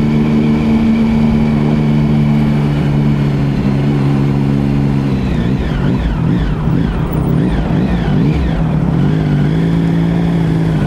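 Triumph Sprint ST1050's inline three-cylinder engine running at a steady low-speed note. From about five seconds in, its pitch wavers up and down for a few seconds before settling back to a steady note.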